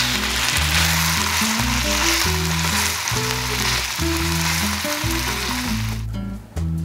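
Salmon steak sizzling in oil in a frying pan, its second side searing after being flipped; the sizzle cuts off suddenly about six seconds in. Background music with low notes plays underneath.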